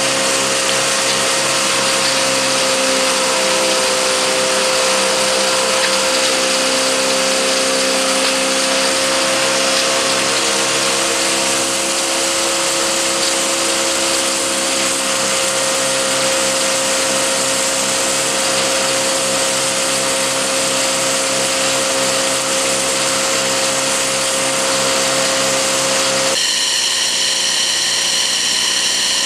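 Bark mulch blower running, a steady whine over a loud rushing noise. About 26 seconds in the sound changes abruptly to a higher-pitched whine as mulch is blown out through the delivery hose.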